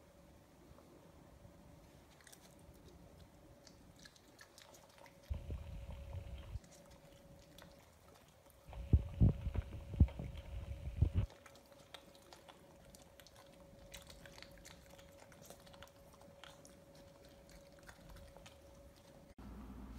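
Puppy licking and chewing a lemon slice: scattered small wet clicks and smacks of its mouth, with two louder spells of bumps and knocks in the middle.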